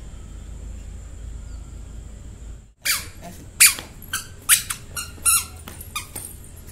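A toddler's squeaky shoes squeaking with each step, short shrill chirps about two a second once the walking starts a little under halfway through. Before that only a faint steady low hum.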